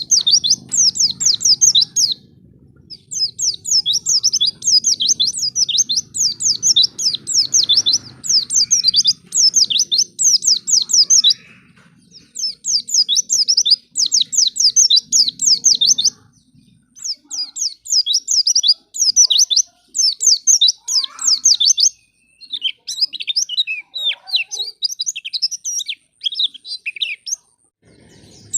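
Pleci (white-eye, Zosterops) singing in rapid twittering phrases of fast, high, falling notes, each phrase about two seconds long with brief pauses between. It is the kind of lure song (pancingan) played to set other white-eyes singing.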